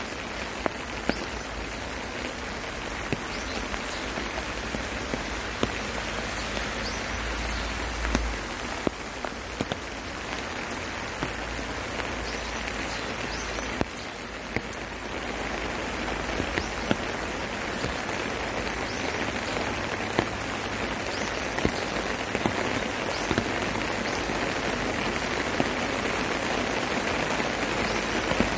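Steady rain falling, with single nearby drops ticking sharply every few seconds. The rain grows a little louder towards the end.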